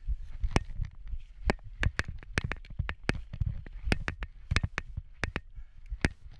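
Canyon Spectral full-suspension mountain bike rattling over rough singletrack: sharp, irregular clicks and knocks from chain and frame, over a low rumble of tyres and wind.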